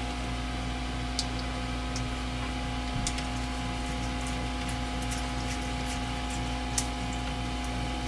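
A steady electrical hum with several held tones, and a few faint ticks as a screwdriver turns the hose-clamp screws on a rubber coupling of a PVC sump-pump discharge pipe.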